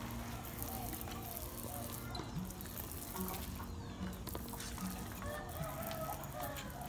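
Chickens clucking in short calls, over the steady hiss of a pesticide sprayer nozzle.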